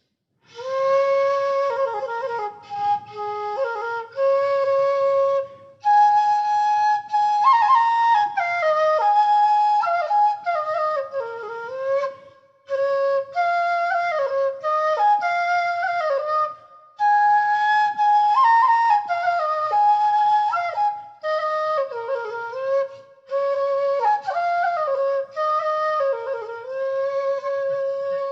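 Bansuri (bamboo flute) played solo: a melody in phrases with short breath pauses between them, some notes sliding into the next.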